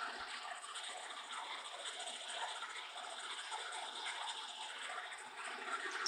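Metal lathe running, spinning a workpiece in its chuck, with a steady, quiet mechanical hiss and faint rattle of the headstock drive.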